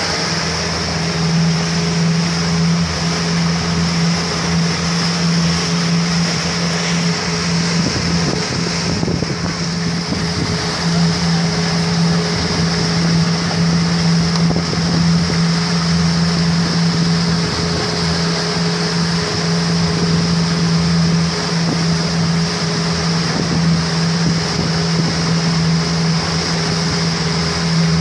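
Motorboat engine running at a steady cruising drone, with water rushing past the hull as the boat moves.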